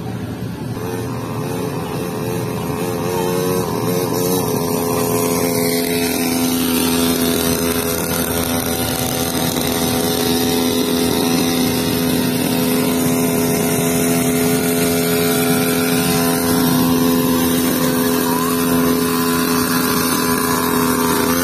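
Small engine of a children's mini dirt bike running steadily at an even pitch.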